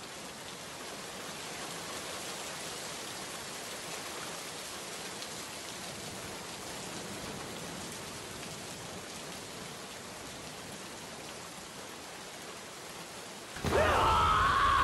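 Steady rain, an even hiss. Near the end a loud screaming voice cuts in suddenly, wavering in pitch.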